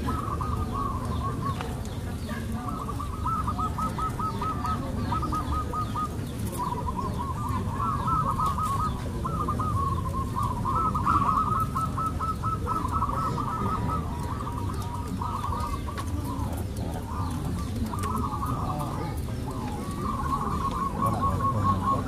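Many caged zebra doves (perkutut) cooing at once, their rapid runs of short, high coos overlapping into a continuous chorus, over a steady low background rumble.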